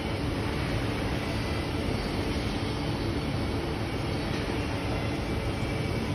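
Steady low background rumble with a faint hum, unchanging throughout, like distant machinery or traffic noise.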